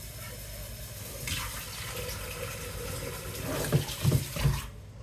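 Water running from a tap into a sink, swelling about a second in, with a few low knocks near the end before the water cuts off suddenly.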